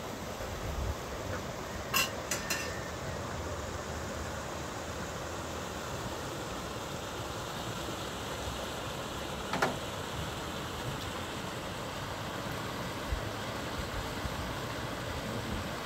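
Steady outdoor wind noise with a low rumble, broken by three sharp clicks about two seconds in and one more near ten seconds.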